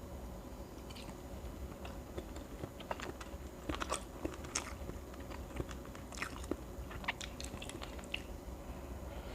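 Close-up chewing and biting on grilled chicken head, with irregular small crunches of bone and cartilage, thickest about three and six seconds in.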